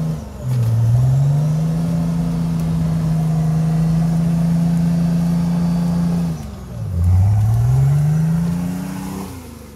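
Off-road SUV's engine held at high revs as it drives hard through boggy, grassy ground. The revs drop and build back up twice, just after the start and about two-thirds of the way through, then fall off near the end.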